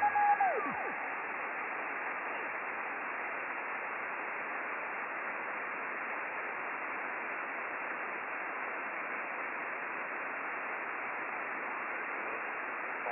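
Steady hiss from an Icom IC-9700 receiving upper sideband on the RS-44 satellite downlink. In the first second a whistling tone slides down in pitch and fades as the dial is tuned across a signal.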